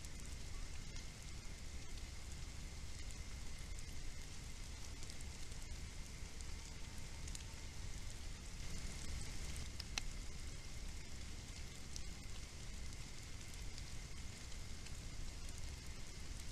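Steady crackly hiss and low rumble from a trail camera's microphone, with a faint steady high tone, scattered faint clicks and one sharp click about ten seconds in.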